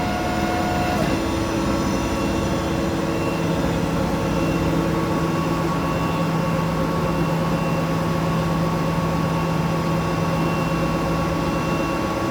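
Hydraulic machine running steadily in its finishing mode: a continuous mechanical hum with several steady tones. A higher tone drops out about a second in, and a lower tone joins about three seconds in.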